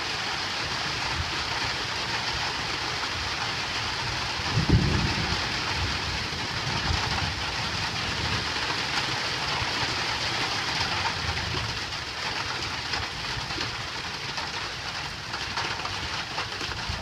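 Steady heavy rain drumming on a tin roof, a dense even hiss. About five seconds in a brief low rumble rises over it, with weaker low swells afterwards.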